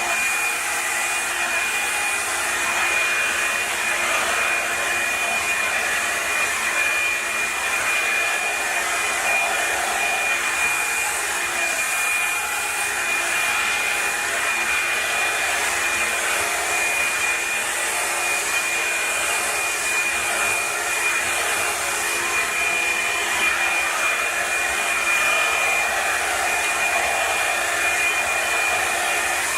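Revlon One Step hot-air brush dryer running steadily on its low heat setting, a continuous airy rush with a steady high whine from its motor, while it is brushed through thick natural hair.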